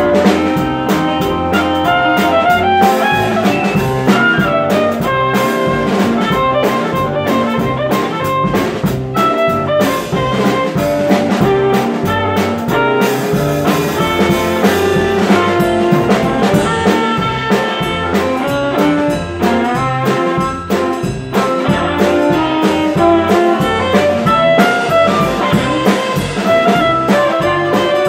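Live country band playing an instrumental break with no singing: a drum kit keeping a steady beat under electric guitar and a melodic lead.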